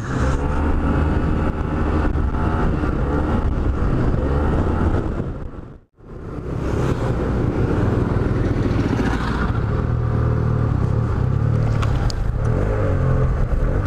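Yamaha TMAX maxi-scooter's parallel-twin engine running steadily while riding, with wind noise on the microphone. The sound drops out for an instant about six seconds in.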